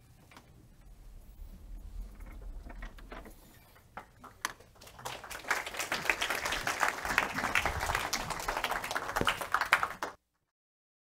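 Audience applauding, starting about halfway through after a few scattered knocks and cut off suddenly near the end.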